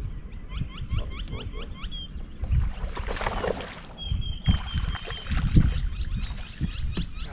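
A bird calling in quick runs of repeated chirps, about six a second, with a brief pause between runs. Low knocks and water sounds from a boat run underneath.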